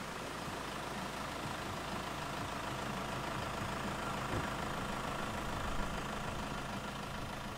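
A motor vehicle engine running steadily at idle-like speed: an even hum with no revving or changes.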